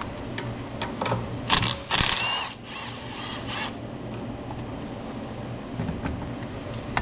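Hand tools and metal parts clinking and scraping during work on a Duramax diesel's turbo pipes and clamps. Two louder scraping bursts come about a second and a half to two and a half seconds in, the second with a short squeal, followed by light clicks over a low steady hum.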